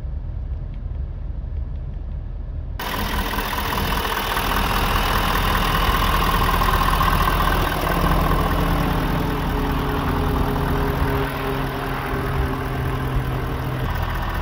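Ford F-250 Super Duty pickup engine idling steadily, with the sound turning suddenly louder and fuller about three seconds in.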